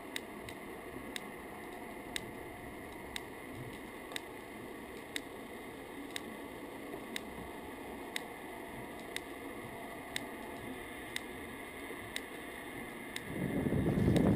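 Sharp ticks at an even rhythm, about one strong tick a second with fainter ones between, over a steady hiss heard underwater beside the Wave Glider's sub unit. Near the end, loud rumbling wind and water noise comes in.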